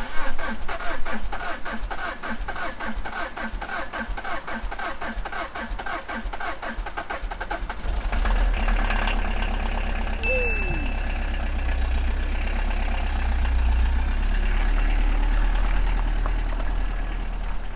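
Small camper van's engine cranked by the starter for several seconds, catching about eight seconds in, then running steadily as the van pulls away, getting a little louder near the end.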